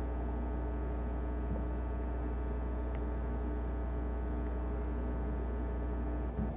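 Steady electrical mains hum with a buzzy ladder of overtones, unchanging throughout.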